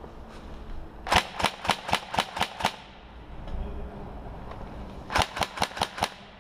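Airsoft electric rifle firing BBs in two strings of quick single shots, about four a second: about seven shots, then a pause, then about six more near the end.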